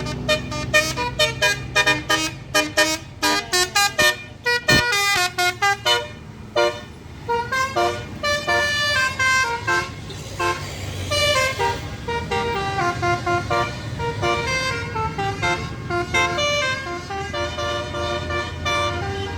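A tour bus's telolet basuri horn, a multi-trumpet musical air horn, playing a tune. It starts with a fast run of short staccato toots, and after about six seconds moves into a melody of longer held notes, with the bus engine running underneath.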